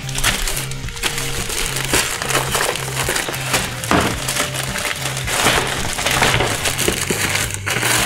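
Plastic parts bag crinkling as it is handled, over background music with a steady low bass beat.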